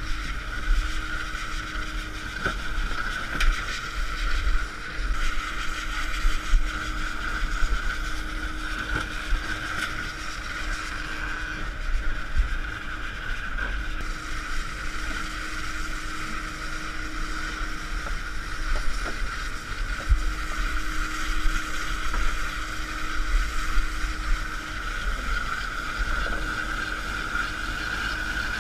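Workboat's engine running under way, with a steady whine, a lower hum that cuts in and out every few seconds, and occasional knocks, against wind on the microphone.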